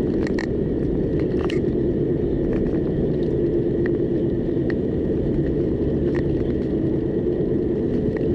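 Steady low rumble of a car driving on a paved road, heard inside the cabin: tyre and engine noise, with a faint high steady tone and a few scattered faint clicks.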